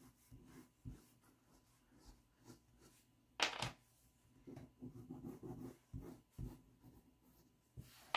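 Faint, scattered scratching of a pastel stick stroked across drawing paper, with one brief louder rub about three and a half seconds in.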